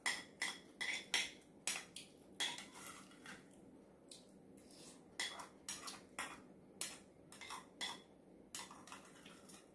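Metal spoon clinking and scraping against a ceramic rice bowl in a run of quick clicks, about two a second, which thin out for a moment in the middle and then pick up again.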